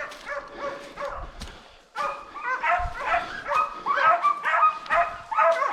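Pack of boar-hunting hounds yelping and baying, several dogs overlapping, fainter at first and then loud and in quick succession from about two seconds in.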